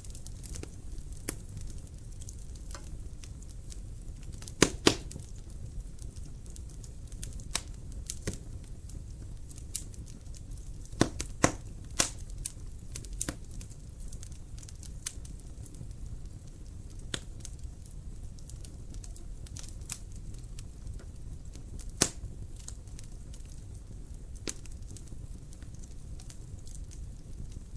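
Wood fire crackling in a fireplace: a steady low rumble of flames with scattered sharp pops and snaps, a few louder ones about 5, 11–12 and 22 seconds in.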